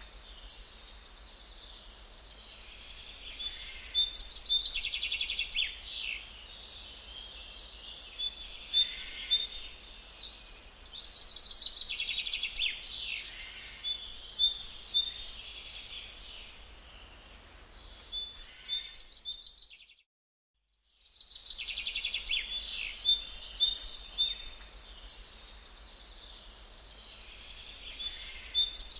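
Birdsong ambience: high chirps, whistles and rapid trills from small songbirds in phrases that keep recurring. About twenty seconds in it cuts out to silence for about a second, then resumes.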